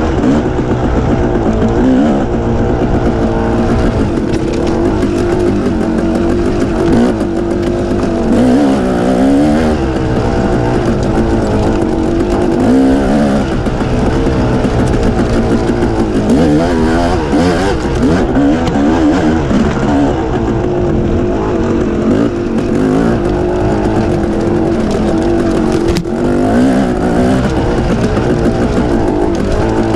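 Dirt bike engine running on a rocky single-track trail, its pitch rising and falling constantly as the throttle is opened and closed.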